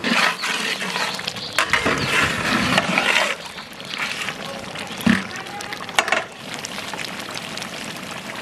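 Beef curry bubbling and sizzling in a large aluminium cooking pot as a long-handled metal spatula stirs it, louder for the first few seconds and then settling. It is broken by a few sharp knocks of the spatula against the pot.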